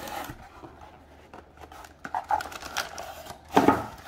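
Hard drive packaging being handled: a cardboard box opened and a drive in an anti-static bag with plastic end caps lifted out, making soft rustling, crinkling and light scraping, with a louder rustle about three and a half seconds in.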